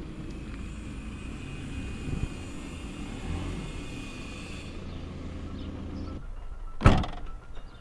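A Volkswagen hatchback's engine running low and steady as the car rolls slowly up to a house, cutting off about six seconds in. Under a second later comes a single loud thump.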